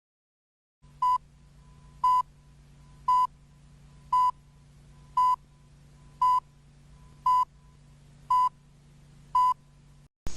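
Nine short, identical electronic beeps, evenly spaced about one a second, over a faint low hum that cuts off near the end.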